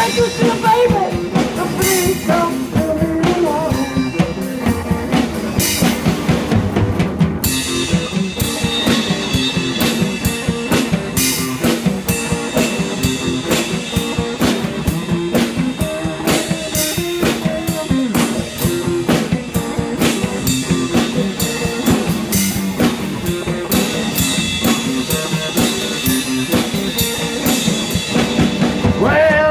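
Live rock band playing an instrumental passage: a semi-hollow electric guitar through an amp over a drum kit keeping a steady beat. The drumming gets busier about seven seconds in.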